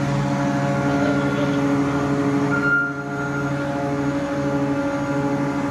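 Ship's electro-hydraulic steering gear with its No. 1 pump running under local control, a steady machine hum made of several constant tones that dips briefly about three seconds in.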